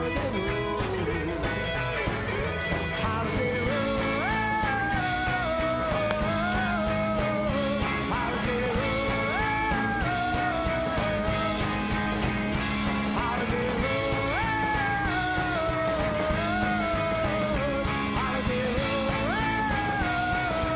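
Background rock music with a steady beat and a lead melody that slides up and falls back, repeating about every five seconds.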